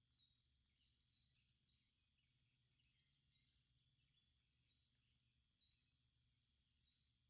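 Near silence: faint chirps of small birds in woodland, a scatter of short calls that thicken about three seconds in, over a steady low hum.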